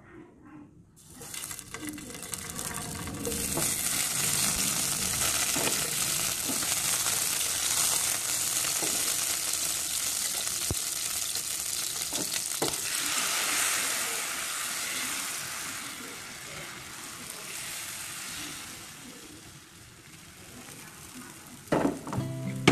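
Bánh xèo batter frying in hot oil in a pan: a sizzle that starts sharply about a second in, holds steady, then dies down over the last several seconds as the pancake cooks.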